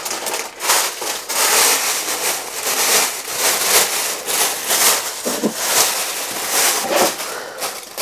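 Plastic packaging crinkling and rustling in the hands, a dense, continuous crackle of many quick irregular clicks.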